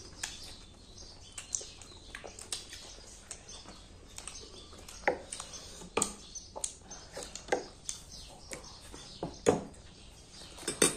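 Sounds of people eating a meal: irregular short clicks and smacks, with a few louder ones scattered through.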